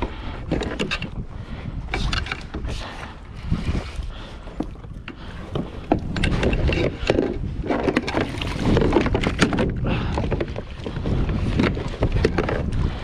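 Wind buffeting the camera microphone and water sloshing against a plastic kayak hull, with scattered clicks and knocks from fishing gear being handled.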